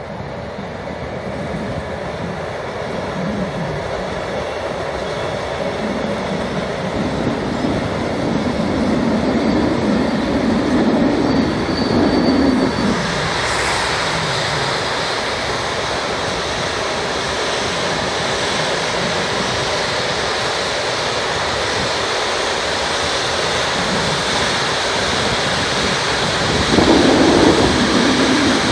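A long freight train of boxcars hauled by two electric locomotives rolling past, its wheels running on the rails. The sound grows louder over the first ten seconds, then holds steady, with a brief louder surge near the end.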